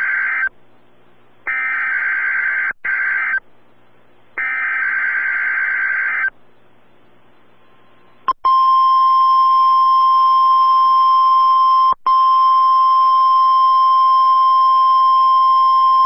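NOAA Weather Radio Required Weekly Test: the end of one burst of the SAME digital header, then two more buzzy data bursts of about two seconds each. After a short pause, from about eight seconds in, the steady 1050 Hz warning alarm tone sounds without a break except for one instant dropout.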